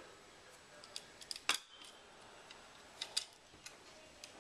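Scattered small clicks and ticks of screws being handled and pushed through a quadcopter frame arm and its plates, the loudest about a second and a half in and a few more around three seconds.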